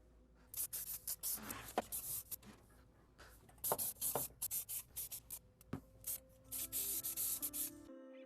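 Aerosol can of self-etching primer spraying onto rusty bare-metal floor pans in many short hissing bursts and a few longer sprays. Quiet background music underneath.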